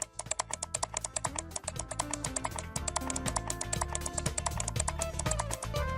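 Background music with a fast, even ticking beat over a steady bass line.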